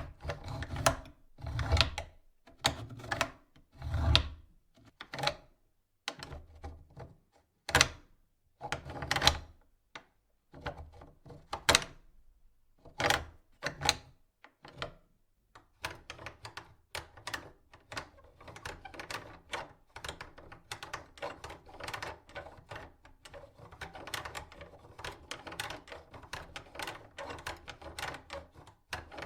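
Metal door latch being forced and worked: sharp metallic clacks and knocks, spaced a second or so apart at first, turning about halfway through into a fast, continuous rattle of clicks.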